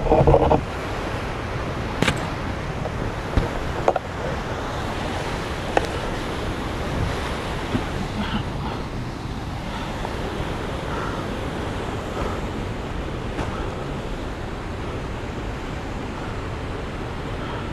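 Steady rushing of a waterfall. It opens with a loud thump, and a few sharp knocks come in the first six seconds.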